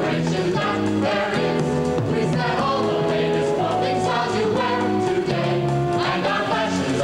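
Music: a choir of young singers with band accompaniment, held notes moving through a melody without a break.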